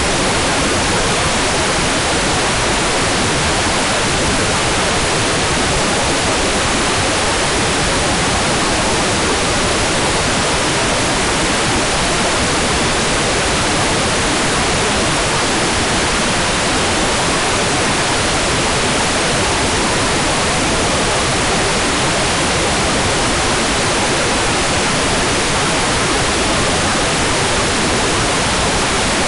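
Hair dryer running steadily: an even, unchanging rush of air with no breaks or changes in pitch.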